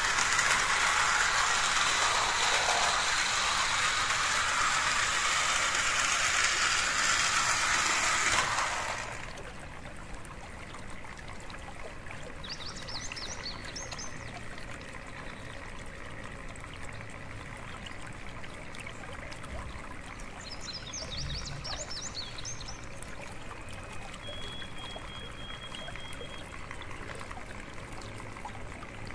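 Small electric model-train locomotive, an HO-scale Bachmann 0-6-0 steam engine with no sound decoder, running fast around a plastic track: a steady, loud rushing rattle of its motor, gears and wheels on the rails. The noise cuts off suddenly after about nine seconds, leaving a faint background with a few brief high chirps.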